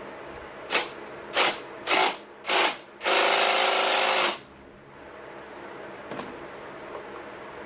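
A power tool on a long extension driving the loose rear engine-mount through-bolt tight: four short blips about half a second apart, then one longer run of about a second as the bolt is run down.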